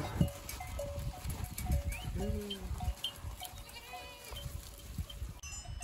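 A flock of sheep and goats bleating: one low, falling bleat about two seconds in and a higher, wavering bleat near four seconds. Small bells on the animals clink quietly throughout, with the shuffle of hooves.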